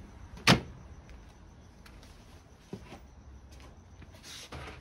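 A single sharp click about half a second in, then a few faint ticks and a brief rustle of handling.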